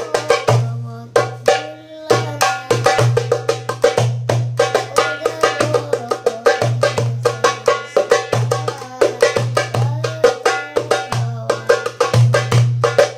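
Darbuka (goblet drum) played with rapid hand strokes in a fast rhythm, over music with a recurring low bass note and a melody. The drumming thins out briefly about a second in, then picks up again.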